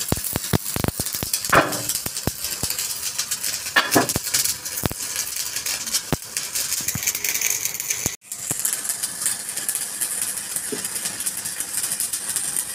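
Steel parts of a truck lift-axle bush job clinking and knocking against a steel workbench as they are handled, with two louder ringing metal strikes, over a steady hiss of workshop noise.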